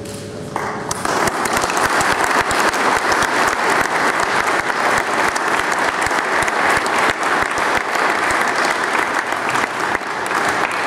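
Audience applauding, a dense clatter of many hands clapping that breaks out about a second in.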